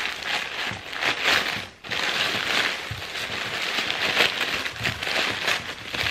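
White packing paper being crumpled and pulled apart by hand, a continuous crinkling rustle with a short pause about two seconds in.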